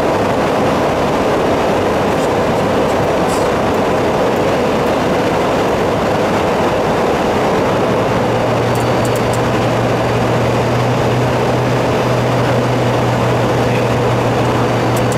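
Steady cockpit noise of an airliner in descent: an even, loud rush of airflow and engine noise, with a low steady hum coming in about halfway through.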